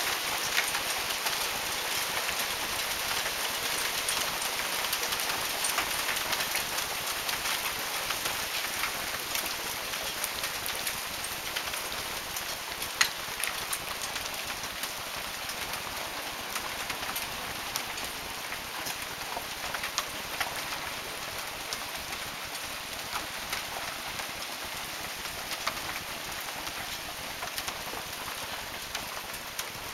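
Hail coming down hard: a dense hiss of countless small hailstone impacts with sharper individual clicks among them, easing slightly toward the end.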